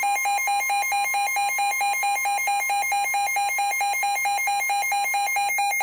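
Emergency weather alert alarm tone, signalling a severe thunderstorm warning. It is a loud, rapid electronic warble alternating between two pitches at about nine pulses a second.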